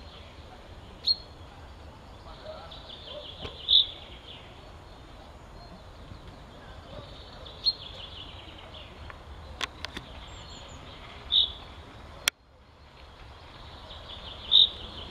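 Male common chaffinch singing: its song repeated about every three to four seconds, each a quick run of notes ending in a brighter flourish. A single sharp click comes about twelve seconds in.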